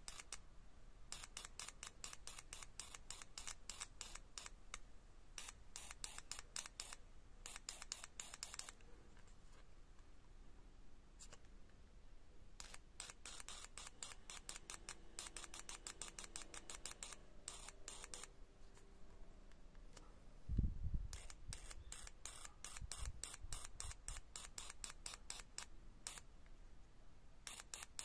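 Fuel injector clicking rapidly as it is pulsed electrically to flush it clean, spraying through its nozzle: runs of fast, even clicks with short pauses between. A single low thump about two-thirds of the way through.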